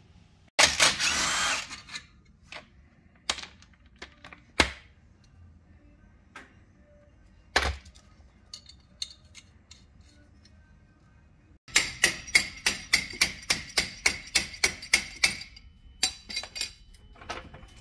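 Impact wrench running in a burst about a second long on the strut's top nut, then scattered clanks and knocks of suspension work. Near the end, a power tool hammers in a rapid, even run of impacts for nearly four seconds, about five a second, over a steady whine.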